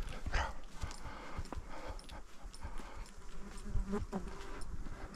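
Arabian stallion walking over grassy forest ground: soft, irregular hoof thuds, with a short buzzing hum about three and a half seconds in.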